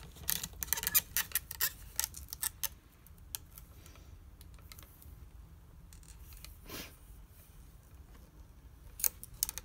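Resin ball-jointed doll's leg and knee joints clicking and scraping as they are bent and handled: a quick run of small clicks and rubbing in the first three seconds, quieter handling after, and a few sharp clicks near the end.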